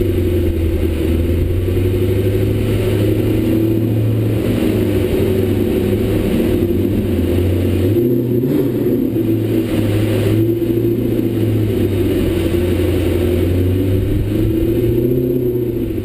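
Audi R8's engine through an aftermarket Kreissieg exhaust, running at low, steady revs as the car cruises slowly: a deep, even drone that lifts slightly in pitch a couple of times, about halfway and near the end.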